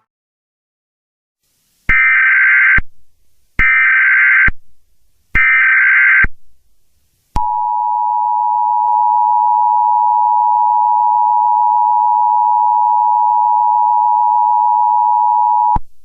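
Emergency Alert System tones: three short warbling SAME data header bursts about a second apart, then the two-tone EAS attention signal held for about eight seconds before cutting off. Together they mark the start of an emergency alert broadcast.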